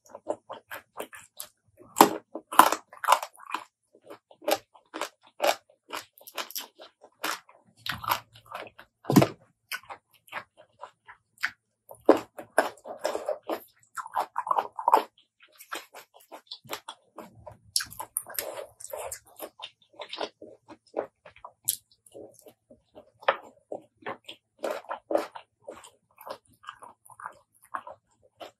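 Close-miked eating: crunchy bites and chewing of a spicy Thai apple snail salad with raw vegetables, in repeated bouts of crisp crunching. The loudest crunch comes about two seconds in.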